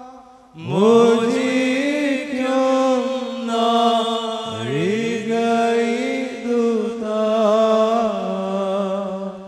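Church congregation chanting a Malayalam liturgical hymn in unison. Many voices slide up into each phrase, with one phrase starting about half a second in and a new one about halfway through.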